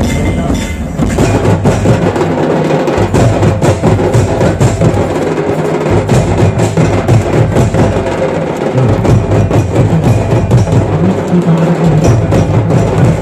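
Santal festival drumming: a group beating large kettledrums with sticks together with smaller barrel drums, in a fast, steady rhythm with deep low strokes that drop out briefly every few seconds.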